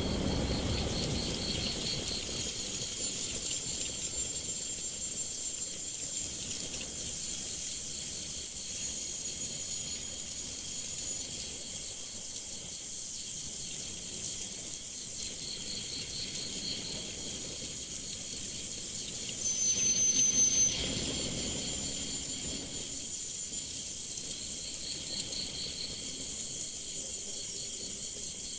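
Insects trilling in chorus: a pulsing trill fades in and out over a steady high-pitched hiss, with a short high tone about twenty seconds in.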